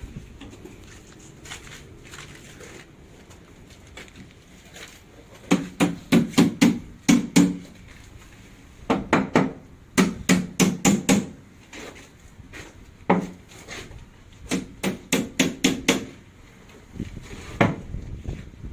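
Hammer driving nails into wooden formwork boards: several runs of quick strikes, about four a second, separated by short pauses.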